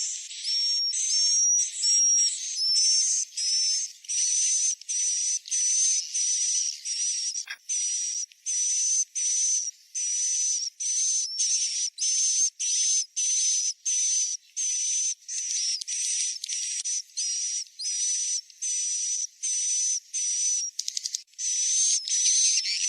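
Recorded swiftlet roosting calls (suara inap), played as a lure for swiftlets into a bird house: high, hissy twittering chirps repeating about twice a second, with short breaks between them.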